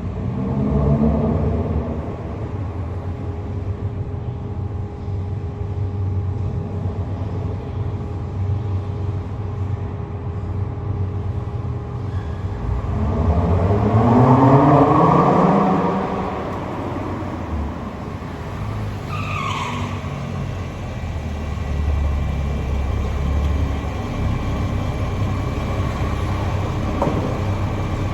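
Sports car engine idling, revved briefly near the start and then in a longer, louder rising rev about halfway through that falls back to idle. A brief high squeal follows a few seconds later.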